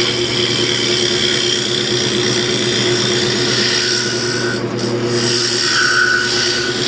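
Wood lathe running with a turning tool cutting a spinning wooden bowl blank: a steady motor hum under a continuous scraping hiss of the cut, which eases for a moment about two-thirds through.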